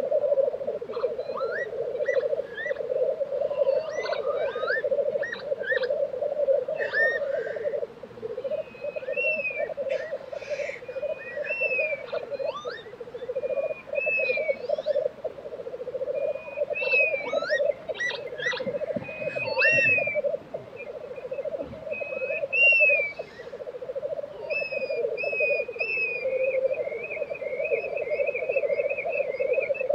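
Male black grouse lekking: a continuous rolling, bubbling chorus from several birds. Shorter, higher sliding bird calls come and go over it, with a run of repeated calls near the end.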